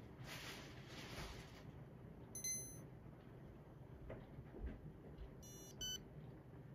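Electronic beeps from a Sprint MiFi mobile hotspot as it reboots in a reset loop. There is one short tone about two and a half seconds in, then a quick run of beeps ending in a short tone near the end.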